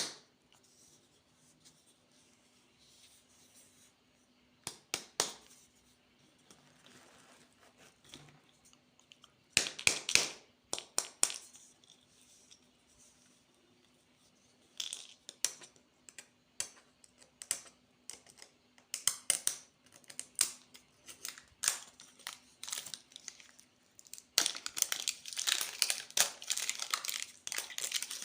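Plastic candy wrappers crinkling and tearing in scattered bursts that come closer together and turn into continuous crinkling about twenty-four seconds in. A faint steady hum runs underneath.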